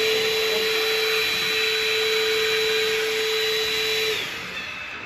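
An electric motor spins up, runs with a steady whine over a rushing hiss, and winds down about four seconds in.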